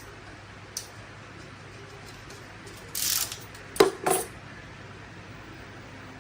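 Small metal parts clinking and knocking as they are handled: a light click about a second in, then a short scraping rattle and two sharp clinks about a third of a second apart in the middle, the first clink the loudest.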